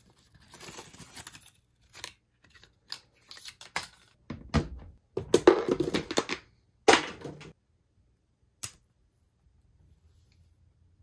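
Unboxing handling sounds: paper packaging rustling and a clear plastic wrap crinkling, with scattered light clicks and taps. The crinkling is loudest in the middle.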